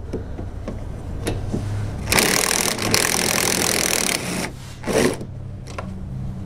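Impact wrench hammering for about two seconds, starting about two seconds in, breaking loose a tight bolt on an AC line fitting at a Ford Focus's condenser.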